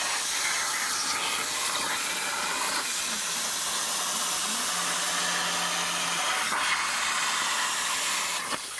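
Swift-Cut Swifty CNC plasma cutter's torch cutting sheet steel: the plasma arc and air jet give a steady hiss, which eases off slightly near the end.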